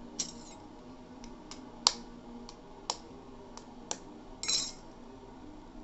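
An egg knocked against a stainless steel bowl to crack it: a string of sharp, irregular clinks, the loudest about two seconds in, then a short rattle near the end.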